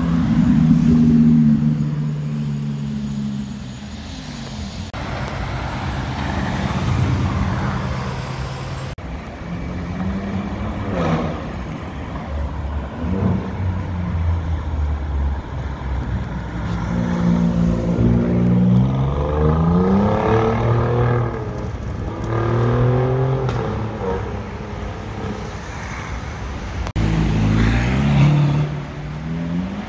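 Supercar engines revving and accelerating past in a run of short clips, each rising in pitch through the gears: a yellow Audi R8's V10 near the start and a red Ferrari California's V8 pulling away near the end.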